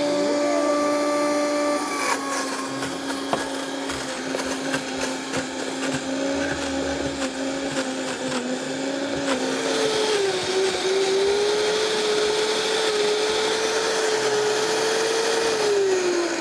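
Vitamix blender running at high speed, pureeing fresh coconut meat with coconut water into coconut whipped cream. Its motor tone steps down in pitch about ten seconds in, and it starts to wind down with a falling pitch at the very end.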